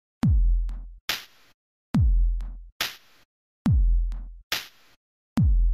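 Electronic music with a sparse drum-machine beat: a deep kick that falls steeply in pitch, followed by a bright snare-like hit, repeating about every 1.7 seconds with silence between the hits.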